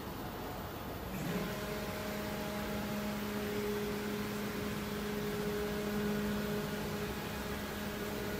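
Stepper motors of a homemade plasma CNC table driving the gantry along its rails: a steady whine with a few even pitches over a hiss, starting about a second in.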